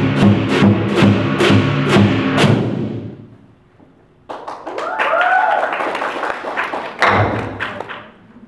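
Lion dance percussion of drum, gong and hand cymbals playing a steady beat, the gong ringing under the strikes. The rhythm stops about two and a half seconds in and dies away. It is followed by scattered softer strikes, a brief rising-and-falling voice, and one heavier drum hit near the end.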